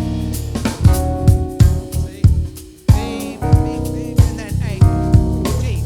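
Live band jamming: drum kit, bass guitar, electric keyboard chords and guitar, with a brief break in the playing about three seconds in before the groove comes back.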